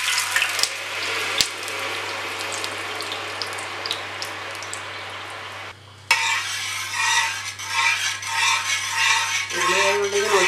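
Jaggery syrup poured into hot ghee, sizzling in a wide uruli pan, with a couple of sharp clicks in the first two seconds. About six seconds in the sizzle drops away, and a steel spatula stirs and scrapes around the metal pan in a repeated rhythm.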